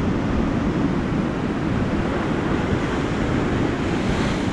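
Surf washing against shoreline rocks, with wind rumbling on the microphone; a wave hisses in a little louder near the end.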